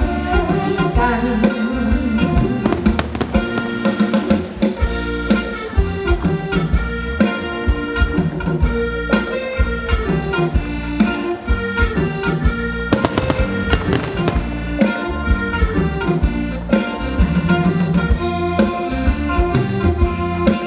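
Live Thai ramwong band playing an instrumental passage with no singing: a reedy lead melody over a steady drum-kit beat.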